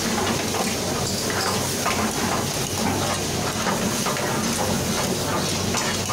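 Food sizzling in steel karahi pans over gas burners, with metal ladles scraping and clattering against the pans as the cooks stir and toss, over a steady rush of burner flames.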